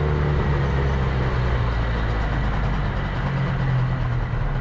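Steady low engine drone and road noise of a moving vehicle, picked up by its own onboard camera.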